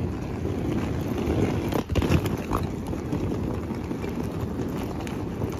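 Outdoor street noise: a steady low rumble of road traffic.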